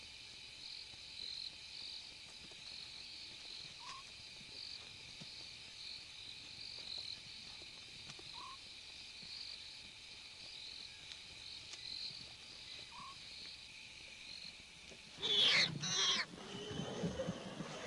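Night chorus of insects, a steady high pulsing trill, with a short rising note repeating about every four and a half seconds. About fifteen seconds in, two loud harsh animal calls come in quick succession.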